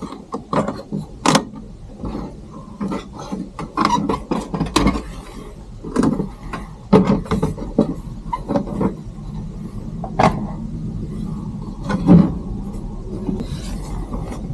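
A series of irregular knocks and clatters, as of objects being handled and set down, over a low steady hum.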